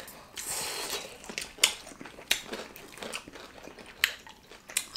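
People chewing and biting into Korean fried chicken: a run of separate short crunches and mouth clicks.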